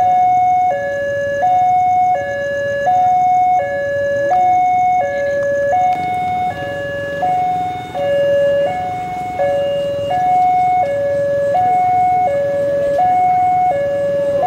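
Railway level-crossing warning alarm sounding a steady electronic two-tone hi-lo, each tone lasting about two thirds of a second, which signals an approaching train.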